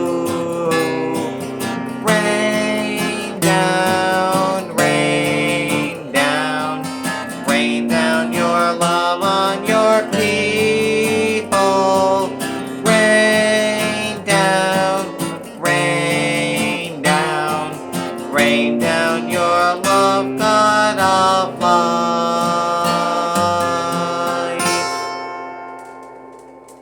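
Acoustic guitar strumming the chords of a hymn as an instrumental close. The final chord rings out and fades away about 25 seconds in.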